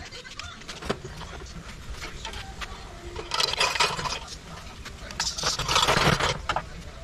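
Metal clinks and scrapes from a Tecumseh BV 153 vertical-shaft engine's crankcase being worked open, with two loud rasping bursts of metal on metal, about three and five seconds in.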